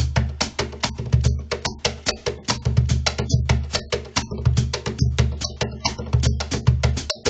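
Cajon played in a fast Peruvian festejo pattern: a dense run of sharp slaps and tones over deep bass strokes that recur about every three-quarters of a second.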